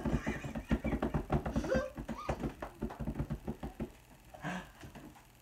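A quick run of light taps, several a second, dying away after about four seconds.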